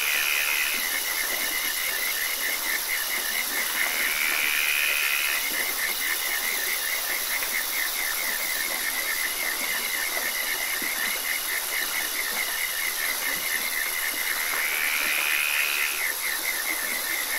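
Frog and insect chorus: a fast, even pulsed trill runs over a high, continuous insect whine. A longer rising call cuts in three times: at the start, about four seconds in, and near the end.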